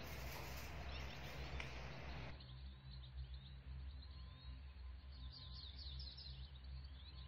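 Faint background noise with a low steady hum, and small birds chirping high and faint from about three seconds in.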